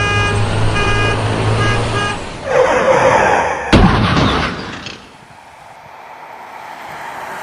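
A horn-like tone over a low hum, cut off twice, then a rising whoosh and a single sharp crack about four seconds in that dies away into a faint hiss.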